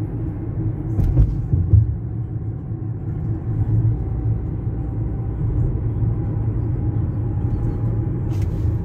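Steady low rumble of a car driving on the road, with a faint knock about a second in and another near the end.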